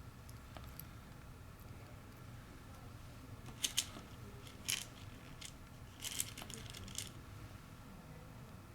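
Small lock pins clicking as they are dropped into the pin chambers of a lock cylinder's pin holder: a few light, sharp clicks in small groups, the busiest burst about six seconds in.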